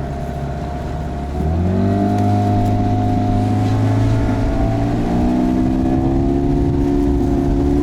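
Boat's outboard motor running low, then opened up about a second and a half in: its note rises and grows louder, climbs a little more a few seconds later, and settles into steady running as the loaded boat gets under way.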